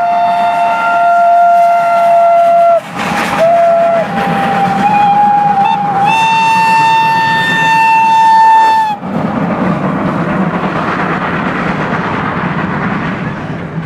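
Steam locomotive whistles blowing, several held tones at different pitches overlapping. One stops about three seconds in and is followed by a short blast. A louder, higher whistle then sounds from about six seconds and cuts off sharply about nine seconds in. After that, only the steady rumble of the steam locomotives running past remains.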